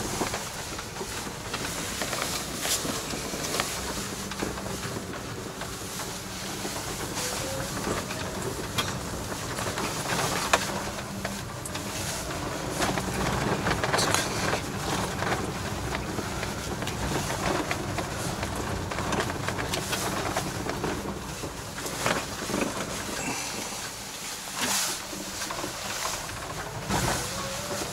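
A small kei truck driving, heard from inside the cab: a steady engine drone with frequent rattles and knocks from the cab over the rough road. The engine pitch rises a couple of times as it speeds up.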